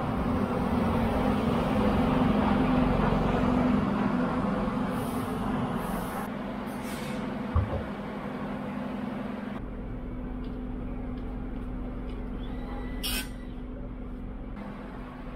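Regional train running with a steady low hum and rumble that dies down about ten seconds in, with a few short hisses and a single knock about halfway.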